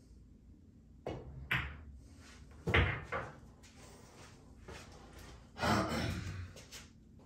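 Pool balls and cue knocking on the table: several sharp clacks, the loudest about three seconds in, then a longer drawn-out knocking sound near six seconds in.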